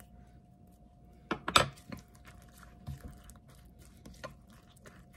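A fork and a silicone spatula stirring a wet egg mixture in a glass bowl, with the utensils clinking and scraping against the glass. The loudest clinks come about a second and a half in, followed by lighter ticks.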